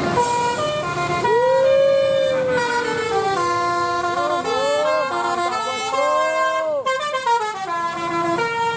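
A bus's 'telolet basuri' musical horn playing a tune: a run of short stepped notes mixed with several long sliding tones that rise and fall.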